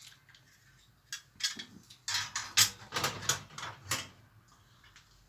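Metal objects being handled and set down on a large engraved metal tray: a series of clinks, taps and scrapes of metal on metal, bunched between about one and four seconds in.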